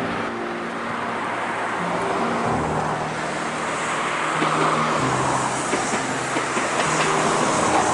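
Background music with held notes that step in pitch, over the growing noise of an approaching train. Sharp wheel clicks start about halfway through and get louder toward the end.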